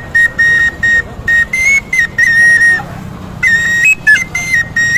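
A high, flute-like whistle playing a tune in short, clipped notes. Most notes repeat one pitch, with small steps up and down.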